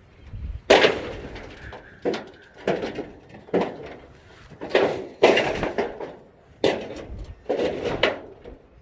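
An irregular series of hard bangs and knocks, about nine in all, each ringing out briefly.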